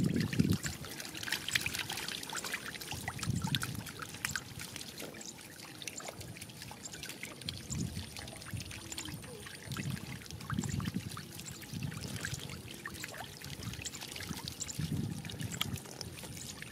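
Shallow muddy water splashing and trickling, with a dense crackle of small splashes and dull low thumps every three to four seconds.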